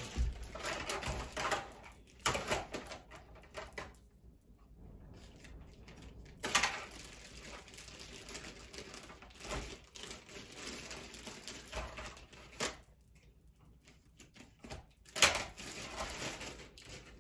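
Scattered clicks, knocks and rustles of someone moving about a room and rummaging for a pair of scissors, with a sharper knock near the end.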